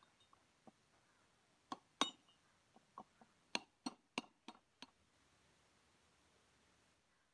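Sharp metallic clinks and knocks of tractor front wheel hub parts and tools being handled, about a dozen separate strikes, the loudest about two seconds in and a quick run of them between three and a half and five seconds.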